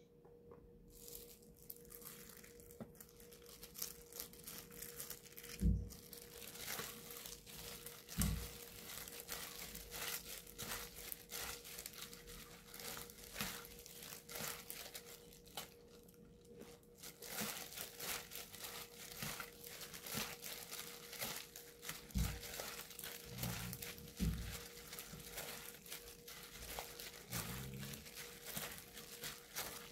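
Thin plastic disposable glove crinkling and rustling continuously as a gloved hand mixes noodles with sauce in a small aluminium pot. A few low thumps come through, and a faint steady hum runs underneath.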